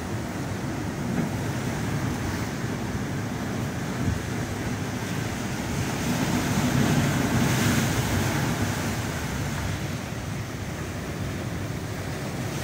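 Ocean surf surging through a narrow gap between sea stacks and washing up a pebble beach, swelling to a louder crash about six to eight seconds in as a wave breaks against the rock, then easing back.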